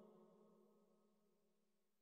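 Near silence: the reverberant echo of a man's reciting voice dies away within the first half-second.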